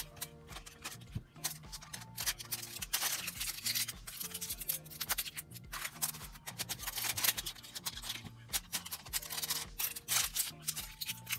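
Aluminium foil nail wraps crinkling and rustling as they are handled and crumpled, over background music with held low notes.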